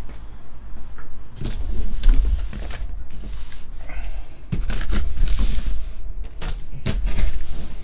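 A cardboard hobby box being handled: pulled from its case and knocked and slid about, with several sharp knocks and hissing scrapes of cardboard. Near the end a box cutter slices the packing tape on the box.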